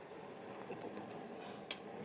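Large pot of grouper in spiced water cooking over the fire: a faint, steady cooking noise, with one sharp click near the end.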